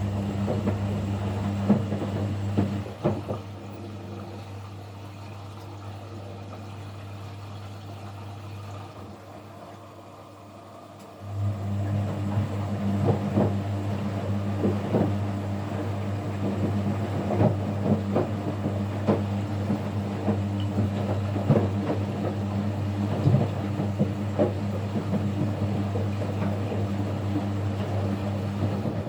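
Kunft washing machine's drum motor humming as the drum turns, with the load knocking against the drum. Around three seconds in the motor stops and the drum rests for several seconds, then the motor starts again suddenly and the drum turns on.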